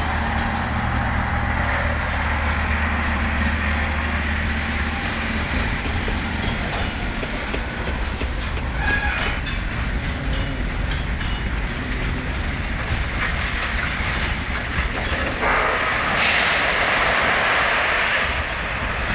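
A heavy vehicle's engine running while a load is dumped. Near the end comes a loud rushing hiss lasting about two seconds.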